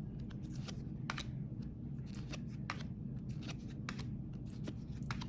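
Trading cards being handled and flipped through one by one: irregular light clicks and slides of card stock over a low steady hum.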